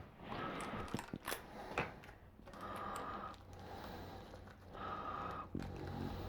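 A few light clicks and knocks from small flat-pack cabinet hardware being handled and sorted, most of them in the first two seconds, over a low background.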